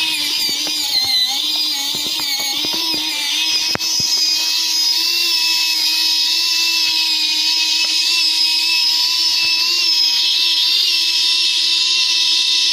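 Small electric gear motor of a cable-powered model tractor whining steadily under load as it pulls a loaded model trolley. A few clicks and one sharp tick come in the first four seconds.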